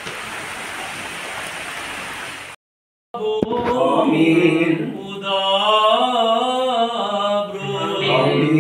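A steady rushing noise that cuts off suddenly about two and a half seconds in. After a brief silence, a priest chants a house-blessing prayer in a sung melody with long held notes.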